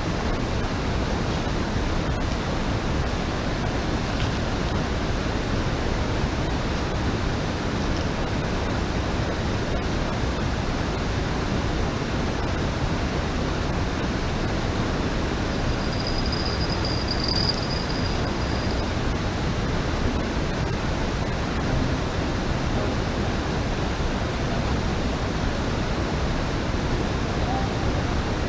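Steady rushing of river water flowing over a weir, with a faint high tone for a few seconds about two-thirds of the way through.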